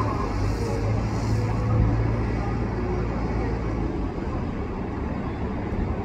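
Skid-steer loader engine running steadily with a low hum, a little quieter in the second half.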